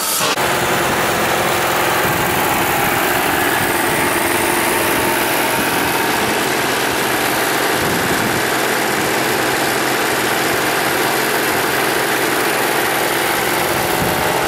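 Nevada Northern steam locomotive No. 40 standing under steam, with a steady, loud hiss.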